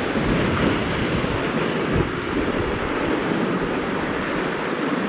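Sea surf breaking and washing against shoreline rocks, a steady rushing noise, with wind buffeting the microphone.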